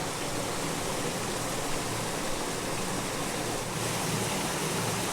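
Creek water running steadily: an even, unbroken rush of flowing water.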